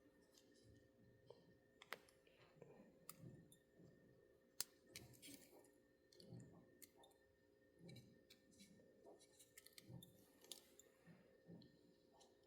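Faint scattered clicks and light taps of small parts and tools being handled while a model locomotive is reassembled by hand, with soft handling noises between them.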